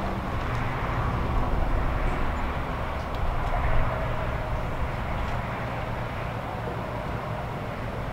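Steady low background rumble, with a few faint metallic clicks of brass hose fittings being handled about three seconds in.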